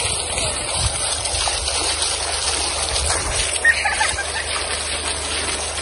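Water jets of a small ground fountain spouting up and splashing down onto stone paving in a steady rush.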